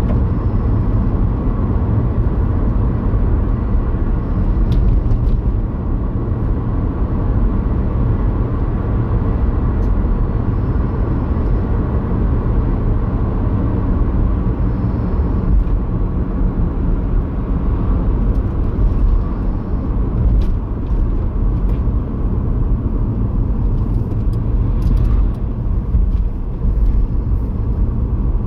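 Steady road and engine noise of a car driving at around 50 mph, heard inside the cabin.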